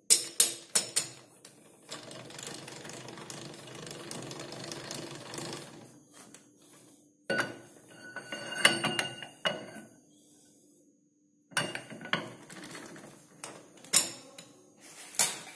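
A long hexagonal bar of steel 45 being fed through a lathe's three-jaw chuck: sharp metal clicks and knocks at the start, a steady scraping as the bar slides, then a burst of clanks that ring with a metallic tone, and scattered knocks of metal on metal near the end.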